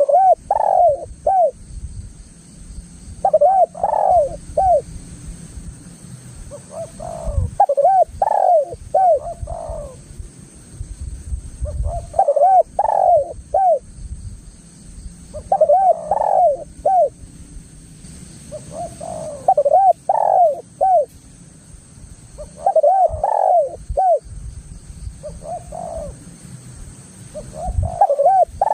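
Spotted dove (tekukur) singing its cooing song: a phrase of several short, rounded coos repeated about every four seconds, with a low rumble underneath.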